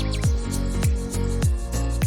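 Background music with a steady beat: a deep bass kick that drops in pitch about every 0.6 seconds, with quick hi-hat ticks in between.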